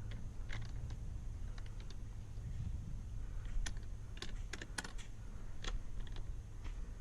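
Irregular light clicks and taps of metal and plastic parts as an outboard motor's transom clamp is handled and fitted to a dinghy's transom, most of them bunched in the middle, over a steady low rumble.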